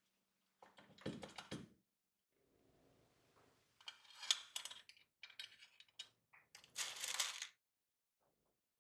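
Small metal toy tractor parts being handled and fitted by hand: clusters of light clicks, taps and rattles in about four bursts.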